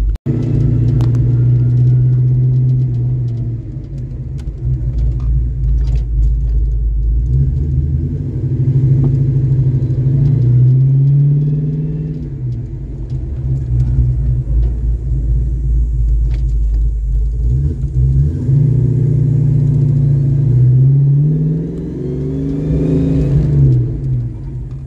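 1982 Ford Mustang GT's V8 engine driving the car slowly down a street, heard from inside the car. The engine note climbs twice as it speeds up, around ten seconds in and again near the end, and each time drops back.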